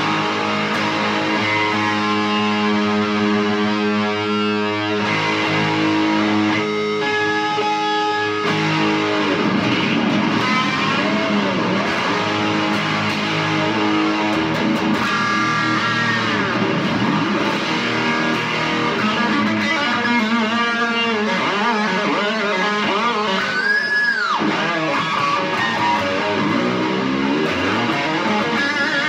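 Kramer Pacer Classic electric guitar played through an amplifier: chords held for the first few seconds, then riffs of changing notes with bends and a swoop in pitch near the end.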